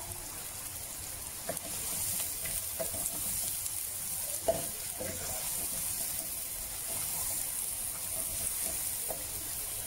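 Chopped onions, garlic and green chilli sizzling in hot oil in a nonstick wok, with a wooden spatula stirring and knocking against the pan now and then.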